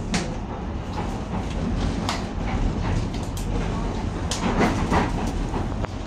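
Docklands Light Railway train running along elevated track, heard from inside the car: a steady low rumble of wheels on rails with scattered clicks and knocks, busiest about four to five seconds in.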